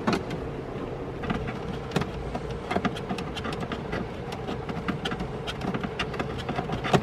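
Irregular light clicks and knocks of hand tools and loosened interior parts being worked in a car's stripped cabin, over a steady low hum, with one sharper click near the end.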